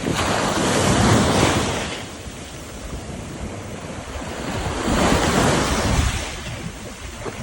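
Sea waves crashing and washing against a sea wall, in two surges: one at the start that dies away after about two seconds, and another about five seconds in.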